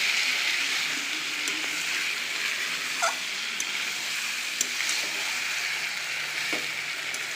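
Mutton and potatoes sizzling as they fry in a pan, a steady hiss with a few sharp clicks from stirring. A brief squeak about three seconds in.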